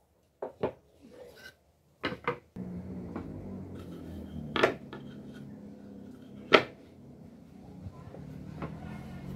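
Wooden boards being picked up and set down on a wooden workbench: a handful of sharp wooden knocks, the loudest about six and a half seconds in, over a steady low hum that starts a couple of seconds in.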